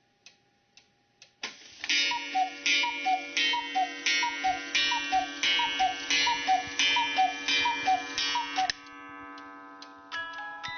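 Mechanical cuckoo clock ticking faintly, then its cuckoo calling the hour with a falling two-note bellows call repeated about ten times, with a clack of the mechanism on each call. Near the end its music box starts to play.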